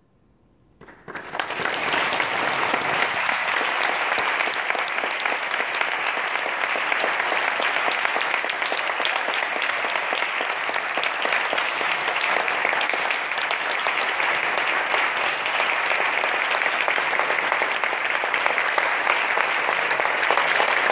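After about a second of near silence, an audience starts applauding and keeps up steady, dense clapping.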